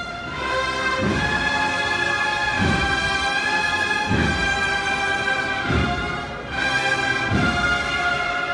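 Brass band playing a slow processional march: long held chords with a deep drum beat about every second and a half.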